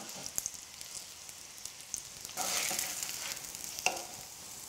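Polenta-crusted chicken fillet sizzling and crackling as it shallow-fries in olive oil in a nonstick pan. The sizzle swells for about a second midway, and there are a couple of light clicks.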